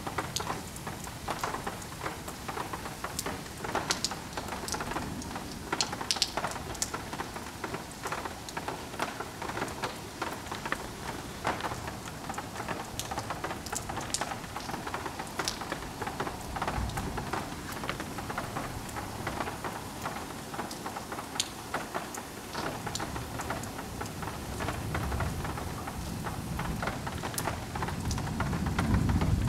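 Heavy rain falling steadily, with many sharp drips and splashes close by. A low rumble of thunder builds in the last few seconds.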